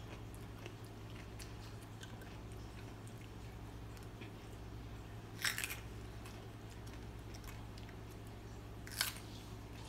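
A boy quietly chewing a raw jalapeño pepper, with two short crisp crunches, one about five and a half seconds in and a briefer one near nine seconds. A steady low hum runs underneath.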